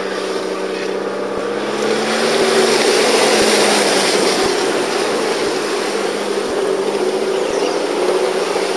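A 4x4's engine running under load as it drives through a flooded track, heard from inside the cab, with a wide rushing noise that grows louder about two seconds in.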